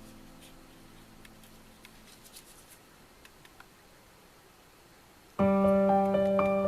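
Background music: a held keyboard chord fades out, a few seconds of quiet follow with a few faint ticks, and then a soft electric-piano melody starts suddenly about five seconds in.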